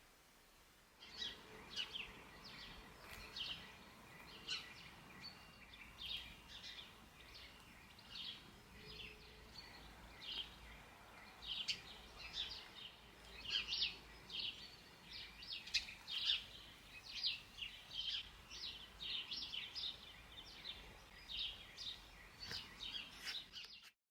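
Birds chirping: a steady run of short, high chirps several a second. They start about a second in and cut off suddenly near the end.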